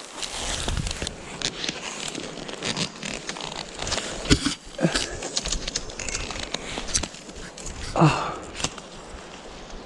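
Leafy branches and dry undergrowth rustling and crackling, with many short snaps and clicks as the brush is handled and pulled. A few louder short sounds stand out about four and eight seconds in.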